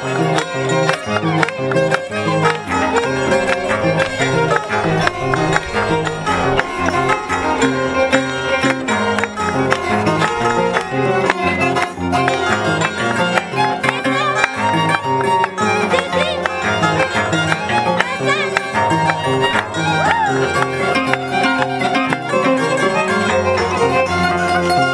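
Andean folk music led by violin over plucked-string accompaniment, with a steady dance rhythm.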